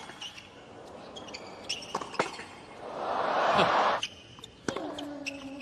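Tennis ball struck by rackets and bouncing on a hard court in a rally: a string of sharp pocks. A swell of crowd noise comes about three seconds in.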